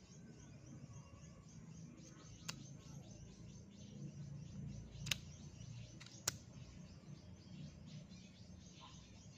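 Three sharp metallic clicks, spread a couple of seconds apart, as the swivel joint of a PB Swiss Tools PB 225 A articulated screwdriver handle is bent and handled, over faint bird chirping.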